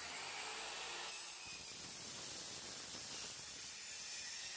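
Electric miter saw running, its blade cutting down through a weathered rough-cut oak board in one steady pass.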